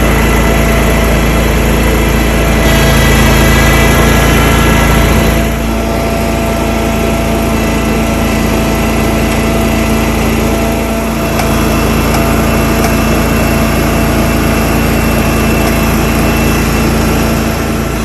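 A small engine running steadily, a little louder for about the first five seconds, then settling slightly lower.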